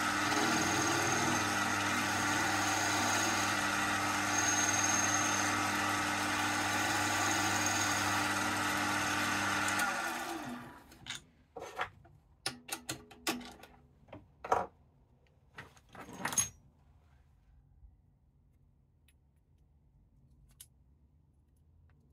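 Axminster mini metal lathe running steadily with a motor hum and a faint high whine. About ten seconds in it is switched off and spins down, and a few sharp clicks and knocks follow.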